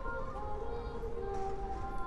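Music of long held notes, several pitches sounding together and shifting to new notes every half second or so, over a low background rumble.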